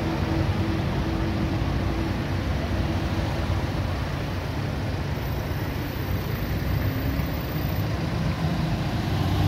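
Steady road traffic: cars driving past, their engines humming low under a constant rush of noise.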